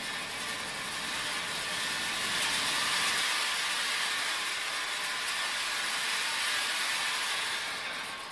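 Sunflower seed roasting line running: a steady hissing rattle of the mesh-belt roaster's drive and seeds pouring off its discharge onto the steel conveyor. It grows a little louder about two seconds in.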